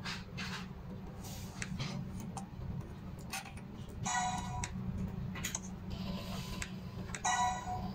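Sumitomo Type-71C fiber-optic fusion splicer working through a splice cycle: a run of small mechanical clicks and ticks from its fiber-positioning motors, with two short pitched whines or beeps, about four seconds in and again near the end, over a low hum.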